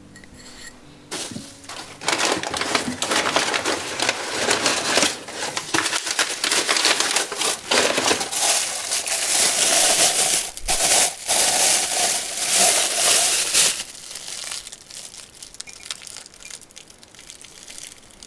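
A thin clear plastic bag crinkling and crackling as a ceramic mug is pulled out of it by hand. It starts about a second in, is densest and loudest in the middle, and thins to lighter crinkles near the end.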